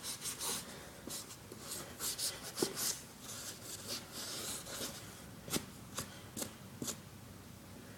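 Wet magic eraser scrubbing a sneaker's leather upper in short, irregular rubbing strokes, with a few light clicks.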